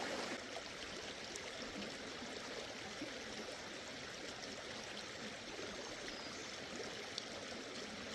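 Fast-flowing stream or river running steadily, with a couple of faint ticks.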